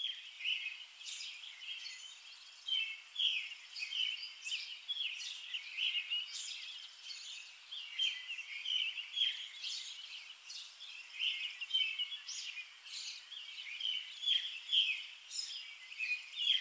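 Small birds chirping outdoors: a steady stream of short, high, overlapping calls.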